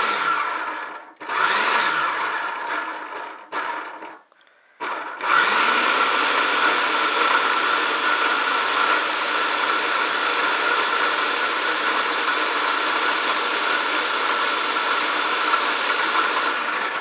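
Food processor blending butter, granulated Splenda, egg, vanilla and molasses into a wet cookie batter. It is pulsed in three short bursts, stops briefly, then spins up about five seconds in and runs steadily with a constant whine before winding down near the end.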